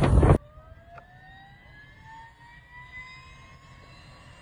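Loud rushing and buffeting from a Leonardo helicopter low overhead cuts off abruptly. It gives way to the helicopter's turbine on the ground, a quiet whine rising slowly in pitch as the engine spools up.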